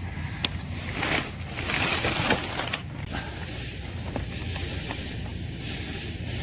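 A click, then rustling and scraping as the car's AC blower motor assembly is handled and pulled out from its housing, over a steady low hum.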